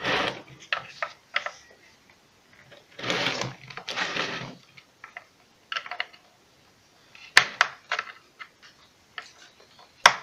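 Hand tools working on a submersible water pump's housing as its screws are tightened: scattered clicks and knocks of metal parts, with two longer stretches of scraping, one at the start and one about three seconds in.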